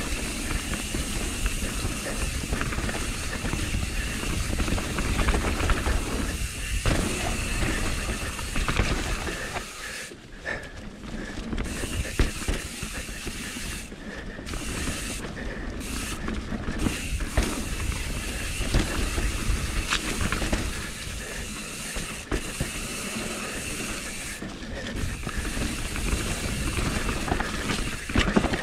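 Enduro mountain bike riding fast down a dirt forest trail: tyre noise over dirt and roots with the bike rattling and clicking over the bumps, under a steady rushing hiss and low rumble of wind on the camera microphone.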